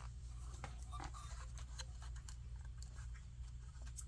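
Light handling noise of a nail drill's plastic parts being fitted together: a few scattered small clicks and soft scrapes over a steady low hum.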